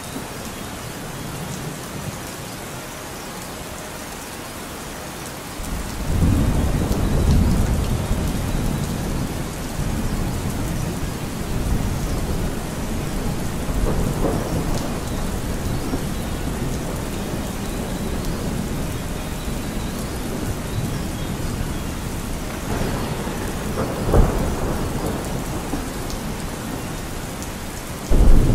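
Steady rain with thunder: a long low rumble builds about six seconds in and rolls on for several seconds, and a sharp clap of thunder comes a few seconds before the end.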